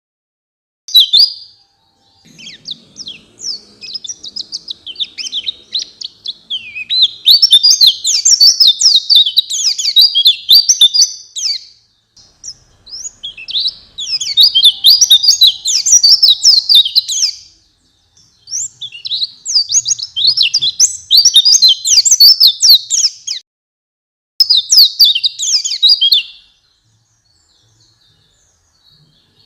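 White-eye (pleci) song: long bursts of rapid, high, twittering chatter, several seconds each, separated by short pauses. This is the kind of song that is played to caged white-eyes to set them singing.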